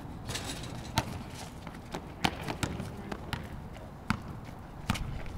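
Basketball bouncing on the court during play: a handful of sharp, irregularly spaced bounces, the loudest about a second in and a little after two seconds in, over a background murmur of voices.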